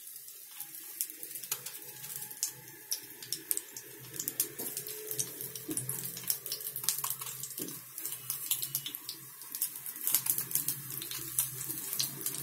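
Slit brinjals frying in hot oil in a kadhai: a continuous sizzle with many sharp, irregular crackles and pops.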